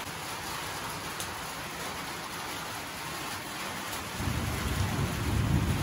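A steady hiss with no words. About four seconds in, a low rumble joins it and grows louder.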